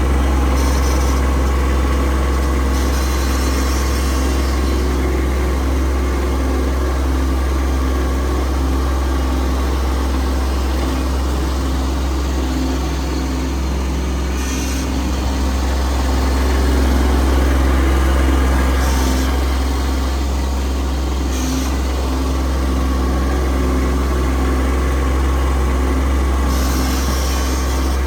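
Kubota B2301 compact tractor's three-cylinder diesel engine running steadily, with a few brief higher-pitched noises over it.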